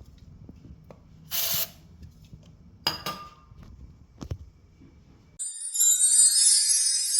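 Quiet handling noises with a low hum, a short hiss about a second and a half in, and a few sharp clicks. About five seconds in, bright jingling music cuts in suddenly and is the loudest sound.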